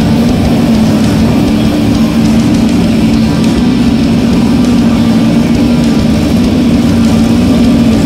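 Race car engine held at steady high revs, loud and continuous, with a single unchanging pitch.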